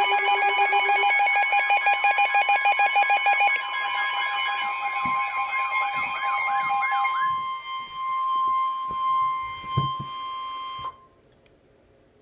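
Several emergency alert tones sounding at once, with fast pulsing beeps and a warbling tone over a steady alarm tone. The others stop about seven seconds in, and the single steady alert tone carries on until it cuts off about eleven seconds in. A few soft thumps are heard in the second half.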